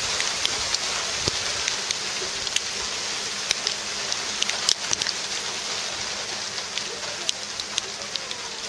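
Small hail falling steadily: a dense hiss dotted with many sharp ticks as the ice pellets strike a tarpaulin-covered table and the paving.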